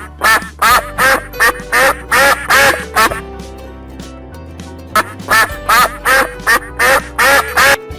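Duck quacking in two quick runs of about eight quacks each, over background music.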